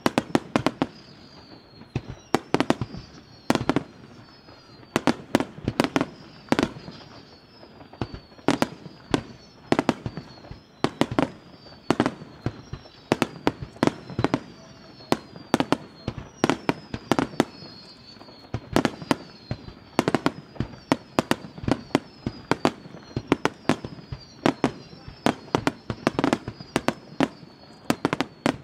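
Fireworks finale barrage: aerial shells bursting in quick succession, several bangs a second, over and over. Repeated whistles fall in pitch among them.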